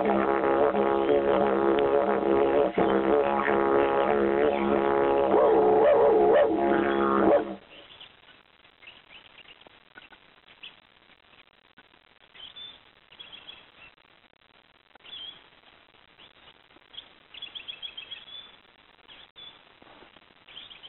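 Didgeridoo droning on one steady note with wavering overtones, cut off abruptly about seven and a half seconds in. Faint, scattered high chirps follow.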